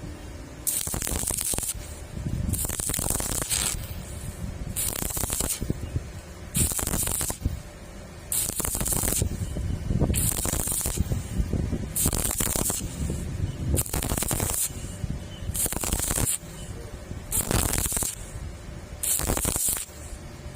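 Stick welding arc crackling and hissing, in stretches of about one to two seconds broken by short gaps where the arc drops off.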